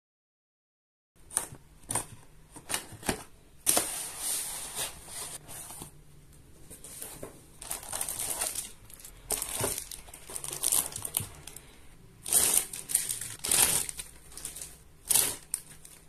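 Clear plastic wrapping crinkling and rustling in irregular bursts as bagged toy parts are handled in a moulded pulp tray, starting about a second in.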